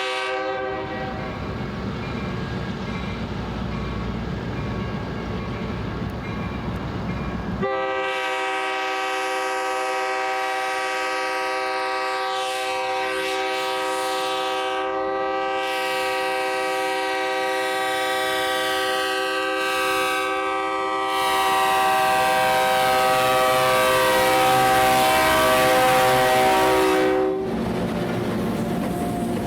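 Diesel locomotive air horn sounding, a chord of several steady tones held almost continuously over the low rumble of the passing train. It gets much louder about eight seconds in, swells louder again later, and cuts off sharply a couple of seconds before the end.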